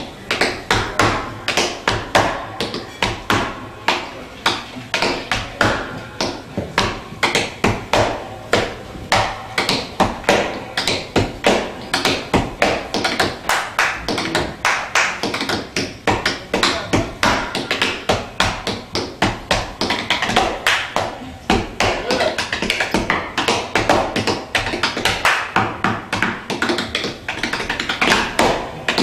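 Tap shoes beating out an unaccompanied a cappella tap rhythm on a portable tap board: a dense, continuous stream of crisp taps, several a second, with no band playing.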